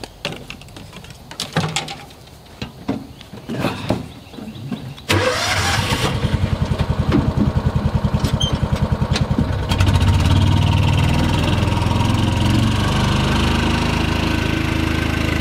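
A few clicks and knocks, then about five seconds in a vehicle engine starts abruptly and runs with an even, rapid pulsing. About ten seconds in it settles into a louder, steady low drone.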